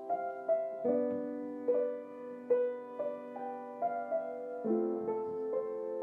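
Soft, slow piano music: single melody notes about every half second over held chords that change twice.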